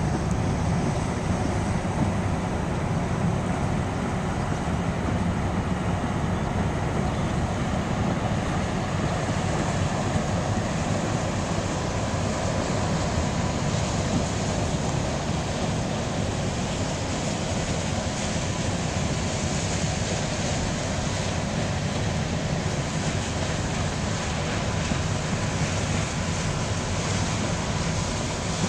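Steady low rumble of the Great Lakes freighter Herbert C. Jackson's machinery as it passes close by, with a faint steady hum, mixed with wind on the microphone.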